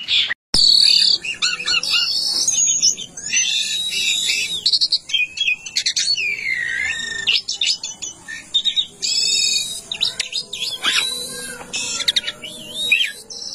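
A songbird singing a long, varied song: quick runs of high whistles, rising and falling glides, trills and chattering notes, one phrase after another with barely a pause, after a brief gap just after the start.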